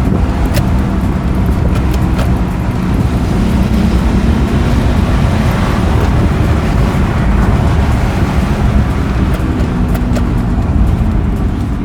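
Honda car driving on the road, with steady engine and tyre noise heard from inside the cabin.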